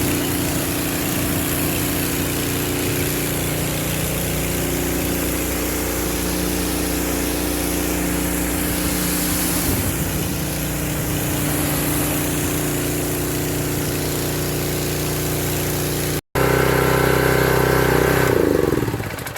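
Briggs & Stratton engine of a Husqvarna PW3200 pressure washer running steadily. After a brief break about 16 seconds in it runs louder, then near the end it slows and winds down, falling in pitch.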